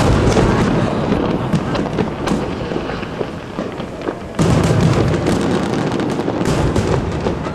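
Aerial firework shells bursting in a display: a sharp bang right at the start, then dense crackling over a low rumble, with another heavy burst about four and a half seconds in.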